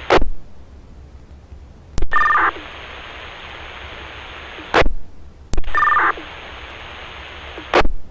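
Fire department two-way radio channel keyed up twice without speech: each time a click and a short two-tone beep, then a couple of seconds of steady open-carrier hiss, ending in a short squelch-tail burst. Another squelch tail closes the previous transmission at the start.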